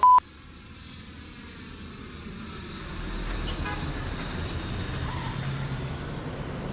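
A short, loud, single-pitched beep, then a steady rumble of road noise that builds over the first three seconds or so and then holds.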